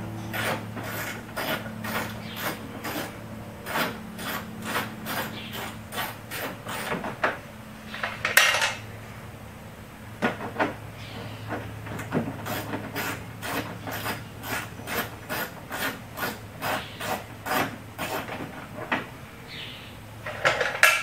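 Hand ratchet clicking in quick repeated strokes, about three clicks a second, as the fender flare bolts are backed out. The clicking comes in two long runs, with a short scraping rattle between them about eight seconds in.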